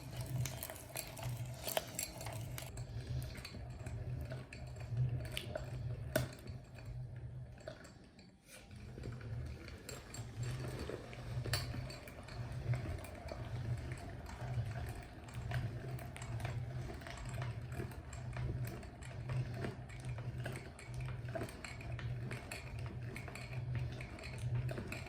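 Meat grinder running with a steady low hum, with scattered sharp clicks and crunches as it grinds candy lollipops; there is a brief lull about eight seconds in.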